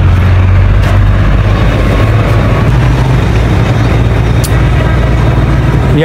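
Wind buffeting the microphone: a loud, steady low rumble with a hiss over it.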